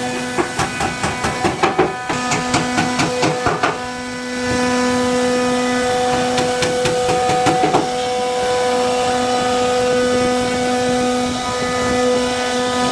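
CNC router cutting wood: a steady machine whine that shifts pitch now and then as it moves. Rapid clicking runs through the first few seconds, then the running evens out.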